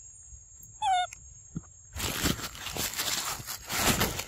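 A young macaque gives one short, wavering squeak about a second in. From about two seconds a loud crackling rustle starts and runs on.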